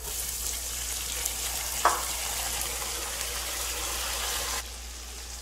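Chopped tomatoes and sliced onions sizzling in hot oil in a metal wok, a steady hiss, with a single sharp knock about two seconds in. The sizzle drops off abruptly near the end.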